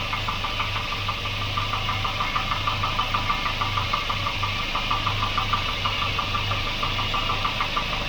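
Volvo 240's redblock four-cylinder engine idling steadily, with a regular rhythmic ticking over the low running note.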